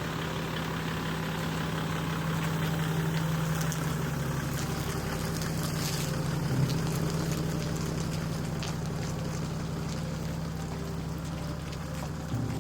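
Motorboat engine running steadily under way, with the rush of water and wind over it. The engine note briefly jumps and gets louder about six and a half seconds in.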